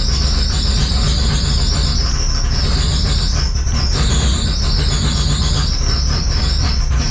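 Mitsubishi 4G63 turbo four-cylinder running just after firing up on a new 12-1 crank trigger wheel, with a steady low engine note and a high-pitched squeal that wavers in pitch.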